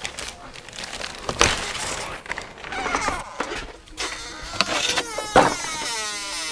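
Tools and small parts clattering and knocking as someone rummages about a workbench, with a wavering whine-like tone near the end.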